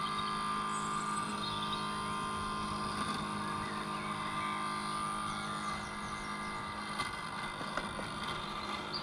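Bosch Indego S+ 350 robot lawnmower running as it mows: a steady electric motor and blade hum with a constant whine.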